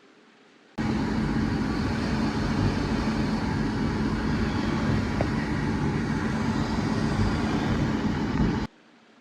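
Loud, steady machine running noise with a low hum, cutting in suddenly about a second in and cutting off abruptly near the end.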